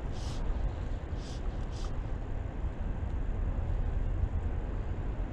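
A steady low rumble, with three short hissing strokes of fly line being stripped in by hand over the rod, the first right at the start and two more about a second and a half in.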